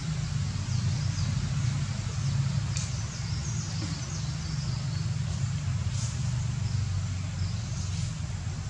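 Outdoor ambience: a steady low rumble throughout, with faint high chirps now and then from about three seconds in.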